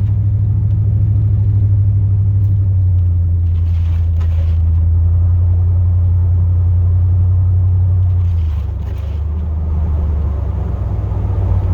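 Chevrolet Silverado plow truck's engine and drivetrain heard from inside the cab: a steady low drone while driving, dropping to a lower note about eight and a half seconds in as the truck slows.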